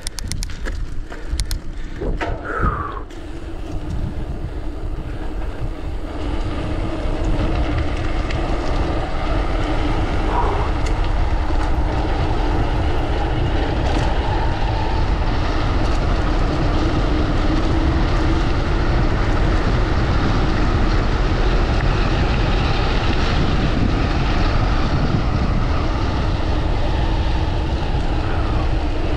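Wind rushing over the microphone with tyre rumble as a mountain bike coasts fast downhill. A few clicks come in the first couple of seconds, then the rush builds over about six seconds into a steady loud roar.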